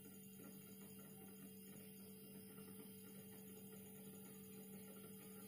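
Near silence with a faint steady hum: a refrigerator compressor running while the system is charged with freon.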